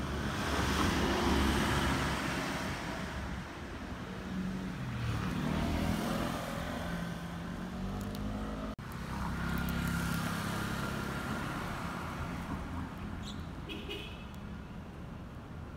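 Street traffic: motor vehicles passing, their engine noise swelling and fading. The sound drops out for an instant about nine seconds in, and a steady engine hum follows.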